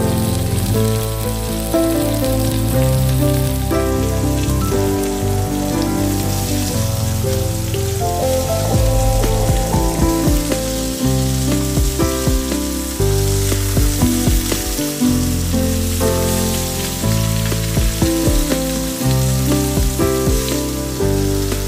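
Chicken breasts sizzling in hot oil in a frying pan, with a few light clicks as metal tongs turn the pieces over about halfway through. Background music with held notes and a bass line plays over the sizzle.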